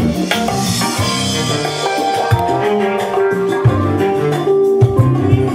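Smooth jazz recording with drums and sustained melody notes, played loud through Philips FWB-MC50/17 shelf-system speakers.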